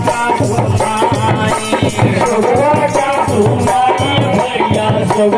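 Men singing a jaari, a Muharram folk song, into microphones, with percussion keeping a steady beat underneath.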